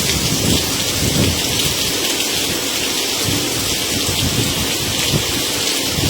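Heavy rain pouring steadily in a windy rainstorm, a dense even hiss with an uneven low rumble beneath it.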